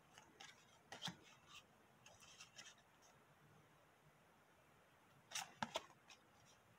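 Faint rustling and clicking of trading cards being flipped through by hand, the glossy card stock sliding and tapping against the stack in two short bursts: one in the first couple of seconds and a sharper one about five seconds in.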